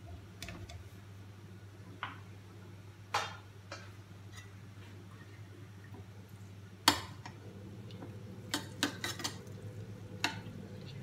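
Steel ladle knocking and scraping against a frying pan while ghee is spooned in for a tadka: scattered clinks, the loudest about seven seconds in, then a quick run of several knocks. A steady low hum runs underneath.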